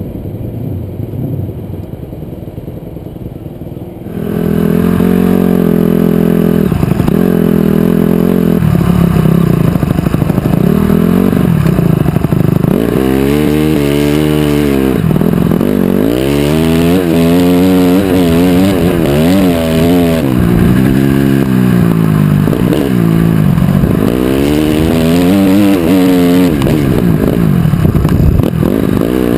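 Honda CRF250R dirt bike's single-cylinder four-stroke engine under way, loud, its pitch rising and falling again and again as the rider works the throttle and gears. For the first four seconds only a quieter low rumble is heard before the engine comes in.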